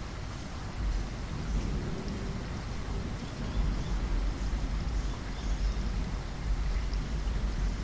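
Rain falling steadily, an even hiss of drops, with a low rumble underneath that swells and fades.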